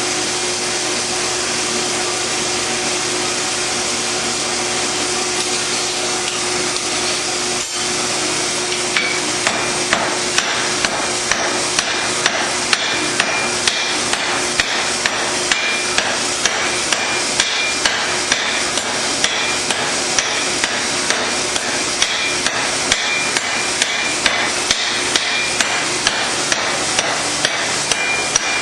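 Hand hammer forging a hot steel knife blade on an anvil: regular ringing blows about twice a second, starting about nine seconds in. A steady rushing noise runs underneath.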